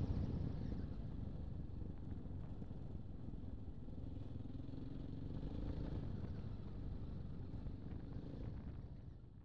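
Motorcycle engine running at a steady cruise, with tyre and wind noise, heard from on the bike while riding a gravel dirt track; it fades out near the end.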